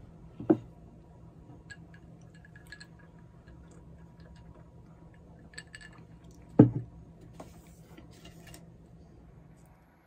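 Dishes set down on a wooden tabletop: a plate knocks down about half a second in, and a heavy stemmed glass of water lands with a louder knock a little past the middle. Faint clinks come between the two, over a low steady hum.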